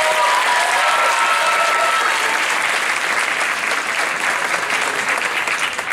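Audience applauding, with a few cheering voices over it in the first two seconds; the clapping eases off toward the end.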